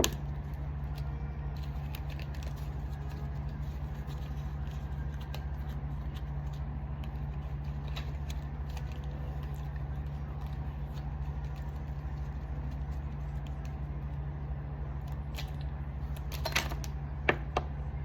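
Steady low background hum with scattered faint clicks, and a few sharper clicks near the end.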